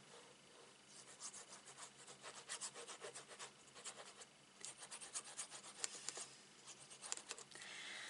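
Faint, scratchy rubbing of a liquid glue bottle's tip drawn in many short strokes along a strip of cardstock, with a brief pause about halfway through.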